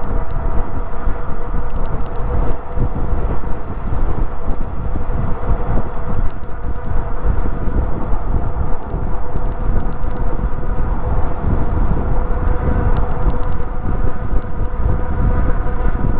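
Wind rushing over the microphone, with the steady whine and tyre noise of a Meelod DK300 Pro e-bike cruising at about 30 mph on asphalt.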